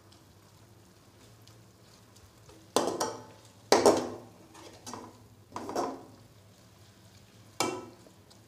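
A flat metal spatula scraping and clanking against a metal pan as onions and ginger-garlic paste are stirred, about five sharp strokes from about three seconds in. Under the strokes there is a faint sizzle of frying oil.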